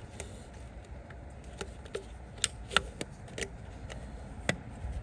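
About eight short, sharp clicks and light knocks, scattered irregularly, some with a brief metallic ring, over a low steady hum.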